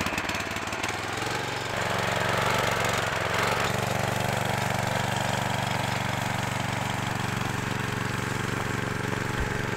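Small air-cooled go-kart engine running as the kart drives off. Close, rapid firing strokes in the first second settle into a steady drone.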